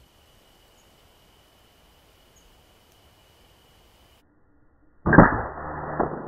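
AirForce Condor .25-calibre air rifle firing a Predator Polymag pellet: one loud, sharp pop about five seconds in that dies away over a second or so, followed by a second, smaller knock about a second later.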